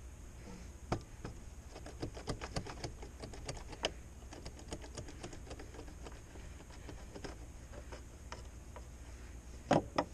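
Hand tools clicking and tapping during motorcycle repair work, with a quick run of rapid ticks a couple of seconds in, scattered clicks after, and two louder knocks near the end.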